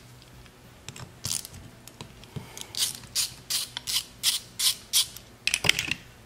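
Socket ratchet clicking as the 7 mm main nozzle is unscrewed from a vintage Honda CL160 carburettor, in a run of sharp clicks about three a second, then a quick flurry of clicks near the end.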